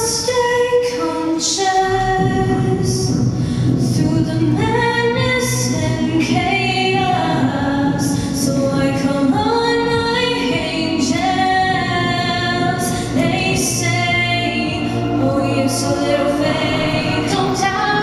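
Two young female singers performing a vocal duet into handheld microphones, one voice carrying the line alone at times, with long held and gliding sung notes.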